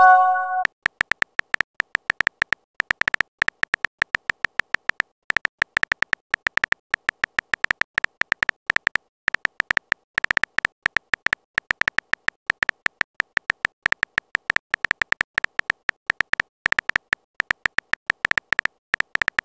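Phone keyboard typing sound effect: quick, uneven runs of short clicks, several a second with brief pauses, as a text message is typed out. A short message chime is just ending as the clicks begin.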